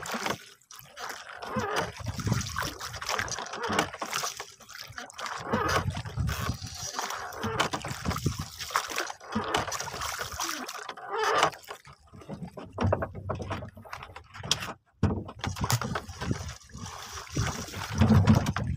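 Sea water splashing and lapping against a small wooden boat, with gusts of wind buffeting the microphone.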